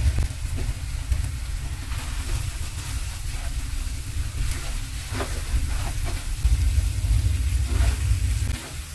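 Spaghetti and shrimp sizzling faintly in a granite-coated frying pan, with a few light knocks as the pasta is tossed with tongs, over a steady low rumble that stops near the end.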